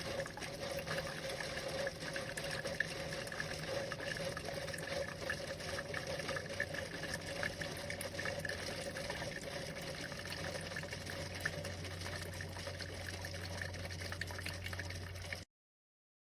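Keurig K-Iced single-serve coffee maker brewing, its pump humming steadily as water runs through and fills the cup. The sound stops abruptly near the end.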